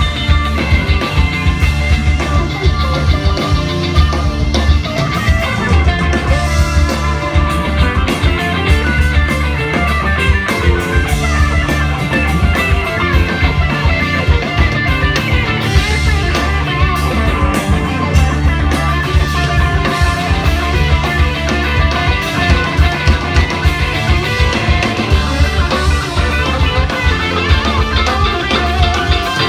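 Live rock band playing at full volume: drum kit keeping a steady beat under electric guitar and a heavy bass line.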